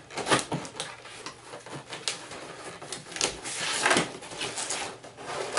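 Cardboard toy box being opened by hand: flaps pulled open and a cardboard insert slid out, with irregular scraping and rustling of cardboard and the loudest scrapes about two and four seconds in.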